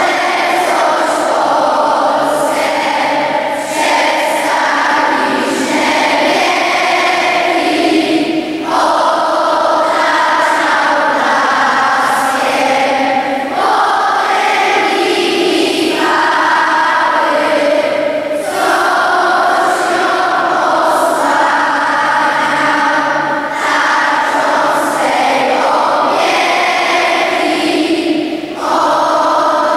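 Large children's school choir singing together under a conductor, in phrases of about five seconds with short breaks for breath between them.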